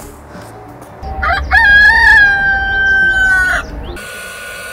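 A rooster crowing once: a few short rising notes, then one long held note that sinks slightly and cuts off. Near the end a steady machine hum starts.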